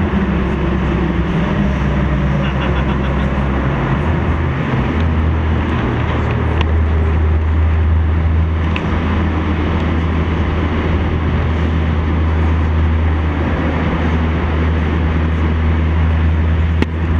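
Car engine and road noise heard from inside the cabin while driving through a road tunnel: a steady low drone over a dense rush of tyre and road noise. The drone grows stronger about four and a half seconds in.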